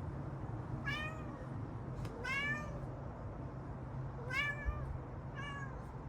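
Domestic cat meowing four times in short, arched calls, over a steady low rumble.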